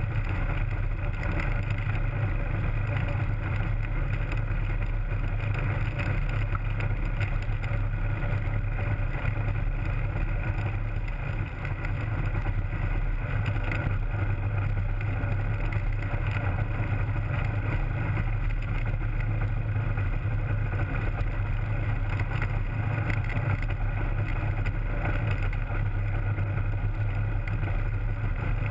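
Two-cylinder two-stroke Rotax 503 DCSI engine of a Hy-Tek Hurricane 103 ultralight, turning a three-blade Warp Drive propeller, running steadily as the aircraft taxis on the ground, easing off briefly about eleven seconds in.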